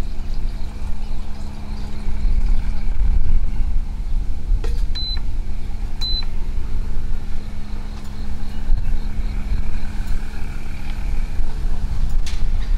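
Two short electronic beeps from an electric cooktop's controls, about five and six seconds in, over a steady low rumble and hum.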